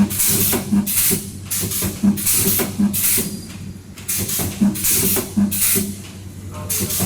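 Automatic spot welding machine cycling through welds. Short, sharp hisses of air come in quick succession, each with a brief low buzz, over a steady low hum.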